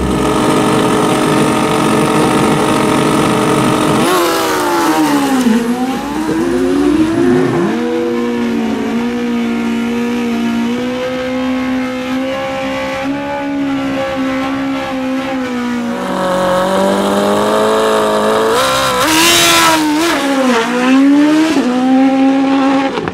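Drag-racing sport-bike engines revving hard and running at high rpm: steady held pitches broken by several quick rising and falling rev sweeps, with a brief burst of tire-spin noise near the end.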